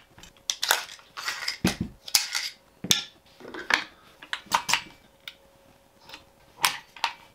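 Irregular clicks and knocks of metal and plastic parts being handled: an AR-15 upper receiver is taken off its lower and a white plastic vise block is fitted into it.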